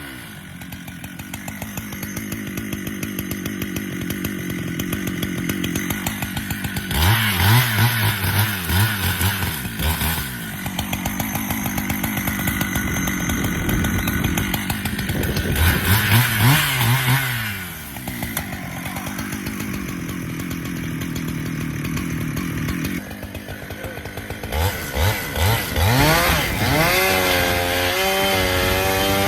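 Husqvarna chainsaw running and cutting wood, its engine speed rising and falling as the bar goes in and out of the cut, with louder, harder-working stretches about a third of the way in, past the middle, and near the end.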